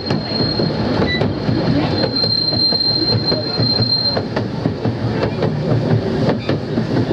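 12¼-inch gauge miniature railway train running along the track, its wheels clicking irregularly over the rails. A high, steady wheel squeal comes on the curve, briefly at the start and again for about two seconds in the middle.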